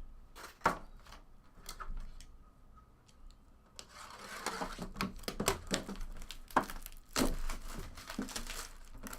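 A few sharp taps and clicks, then, from about four seconds in, a trading-card pack's wrapper being torn open and crinkled in the hands.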